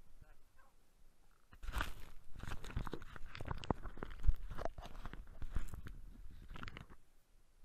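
Close, irregular crunching and knocking of an action camera being handled and shifted in snow. It starts about a second and a half in, with one sharper knock partway through, and dies away shortly before the end.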